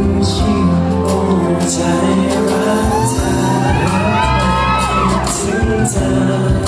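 Live pop ballad performance: male singer's voice through a hall PA over a backing track, with fans shrieking and cheering through the middle.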